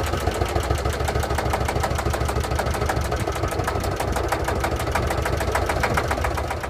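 Sabb 10 hp single-cylinder marine diesel engine running steadily at idle with an even, rapid knocking beat, on its first run after three years sitting unused.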